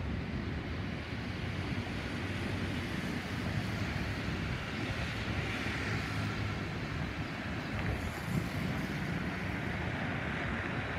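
Jet engines of an Airbus A320-216, its CFM56 turbofans, heard as a steady distant rumble from high overhead. A hiss builds about halfway through.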